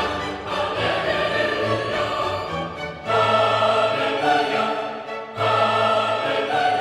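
Background music: orchestral piece with choir-like sustained voices, in phrases that pause and swell again about three seconds in and again near the end.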